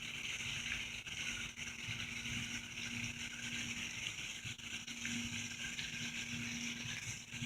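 Steady outdoor lakeside background: an even high hiss with a constant low hum underneath, and no distinct events.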